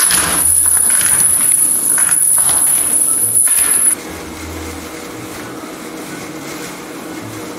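Foley performance: a rope and loose stones are handled for a rock-climbing scene, giving scraping and a few crunches under a high steady tone. About four seconds in, this cuts to a softer, steady rustle of a hand brushing through artificial grass.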